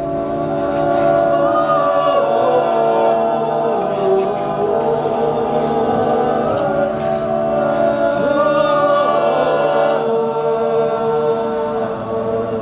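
Men's a cappella group singing unaccompanied: several voices hold slow, sustained chords while a higher voice slides between notes above them.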